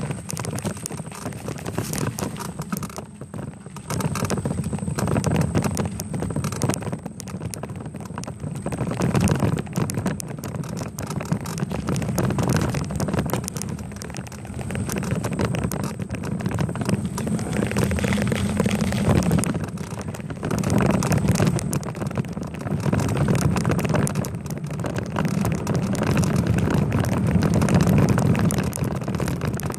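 Riding noise picked up by a bicycle-mounted camera: wind rushing over the microphone, swelling and easing every few seconds, with a constant irregular rattle and ticking from the bike and camera mount over the road surface.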